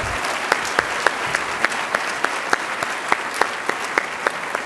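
Audience applauding, with a few nearby claps standing out sharply from the steady clapping.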